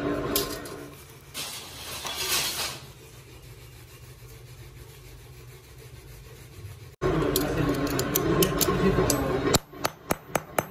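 Steel alligator clip parts being handled, with a quick series of sharp metallic clicks near the end. Before them, after an abrupt cut about seven seconds in, comes a louder stretch of indistinct noise.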